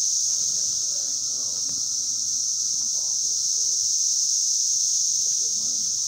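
Brood X 17-year periodical cicadas in a dense chorus from the trees: a loud, steady, high-pitched drone that never breaks.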